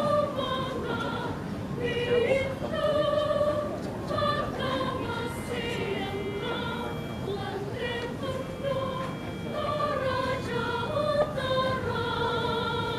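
Choir singing in parts, the notes moving every half second or so, then settling about twelve seconds in on a long held chord with a slight vibrato.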